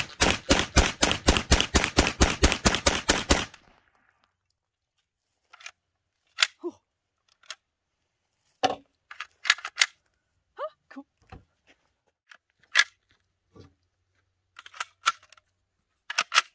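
A rapid string of shots from a 9mm Pioneer Arms PPS43C pistol, about six a second for roughly three and a half seconds. Then scattered metallic clicks and clacks as the magazine is taken out and the gun is handled.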